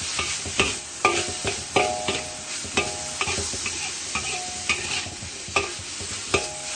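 Stir-frying in a hot pan: oil sizzling steadily under tuna, carrots and halved stinky beans, with a utensil clinking and scraping against the pan every half to one second.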